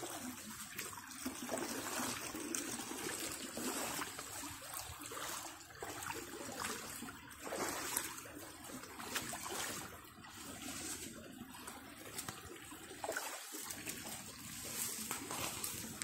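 Shallow creek water flowing and trickling over rocks in a steady, fluttering wash, the creek running a little higher than usual.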